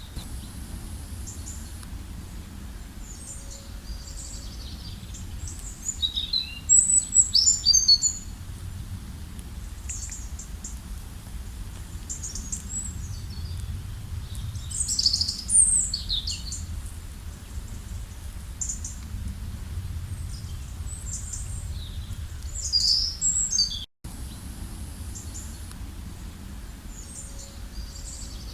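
Several wild birds chirping and trilling in short, high-pitched phrases, loudest about six to eight seconds in, over a low steady rumble. The sound drops out for an instant about 24 seconds in.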